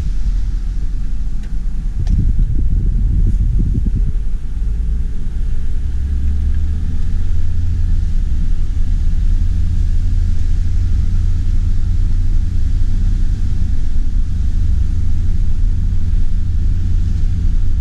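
Steady low rumble of a car driving. In the first few seconds the rumble is uneven and gusty, and from there on it settles into an even drone.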